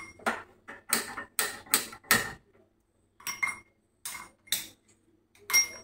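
Metal cookware clinking and knocking on a gas stove: about ten sharp clinks, some with a brief metallic ring, with a short pause in the middle.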